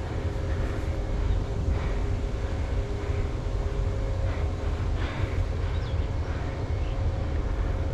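Steady low rumbling noise with a faint, unbroken hum held on one pitch, and a few faint distant voices now and then.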